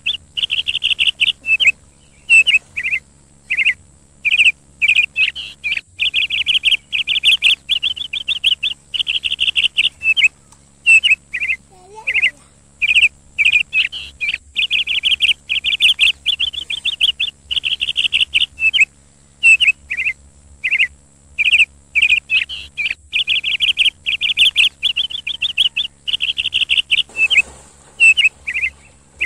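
A songbird chirping and trilling over and over, in short high calls and rapid trills with brief pauses between them. Water splashes briefly near the end.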